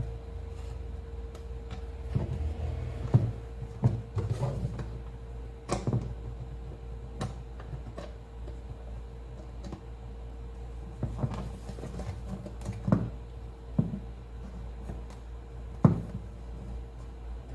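Irregular knocks, clicks and clunks of tools and parts being handled on a repair bench, over a steady low hum with a faint constant tone.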